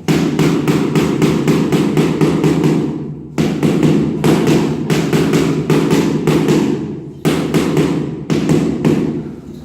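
Rapid rhythmic knocking, about five strokes a second, in runs of a few seconds with brief breaks.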